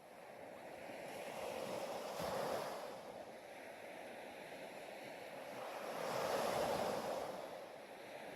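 Ocean waves washing in: a rushing noise that swells twice, about four seconds apart.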